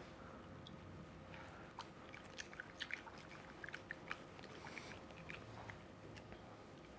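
Faint, scattered small clicks and scrapes of kitchen utensils stirring starch into melted cheese in fondue pots, over a faint steady hum.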